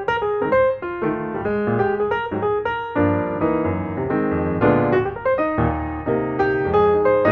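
Background music: a piano playing a flowing melody over chords, with deeper bass notes coming in about three seconds in.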